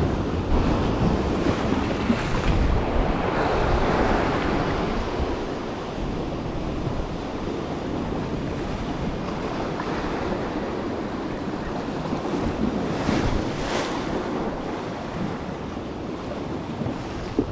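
Sea surf washing and breaking over rocks close below, with wind buffeting the microphone. It is louder in the first few seconds, with another brief surge later on.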